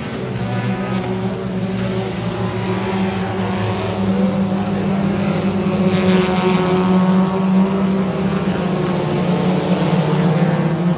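Several front-wheel-drive dirt-track race cars racing, their engines making a steady drone of overlapping tones. A car passes close about six seconds in, its pitch dropping as it goes by.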